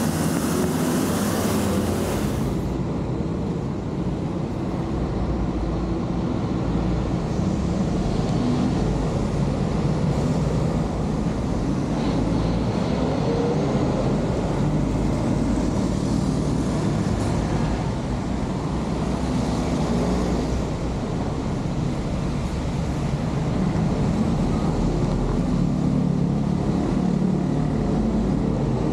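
Steady traffic and engine rumble from vehicles on a wet road. A high hiss in the first two seconds cuts off suddenly.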